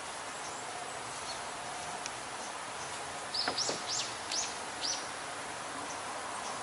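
A bird calling: a quick run of about five short, high chirps about halfway through, over a steady outdoor hiss.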